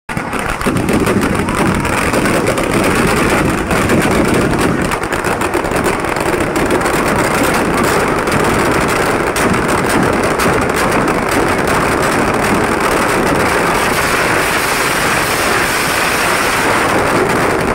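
A large fireworks display going off in a dense, continuous crackling din, many firecrackers and shells exploding together with no gap between them.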